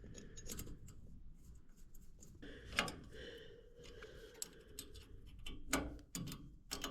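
Small screws being fitted and snugged down by hand on a zone valve body: faint, scattered metal clicks and taps, with a few sharper ticks about three seconds in and near the end.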